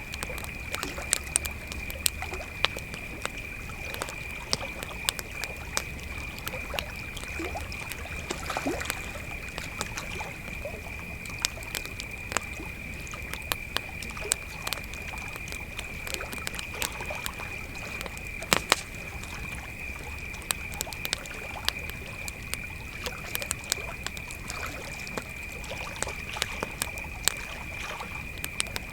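Crickets trilling steadily in one high, unbroken tone while a wood campfire crackles, with frequent sharp pops and snaps.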